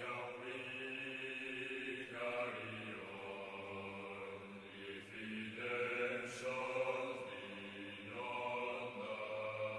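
Background music: slow, chant-like vocals held on long notes over a steady low drone, the notes changing every couple of seconds.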